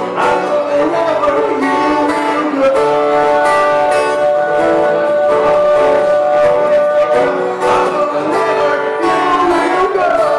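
Live acoustic music: a man singing into a microphone over a strummed acoustic guitar, with long held notes in the middle.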